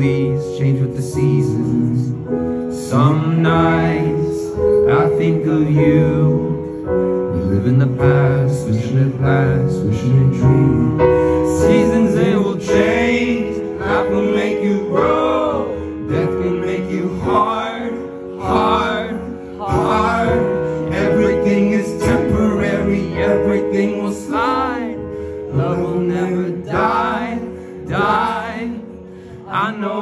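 A man singing live into a microphone in long, bending, held vocal lines over a slow band accompaniment of sustained chords.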